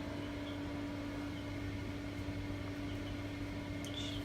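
A steady low electrical hum, with newly hatched chicks peeping faintly now and then, the peeps coming more often near the end.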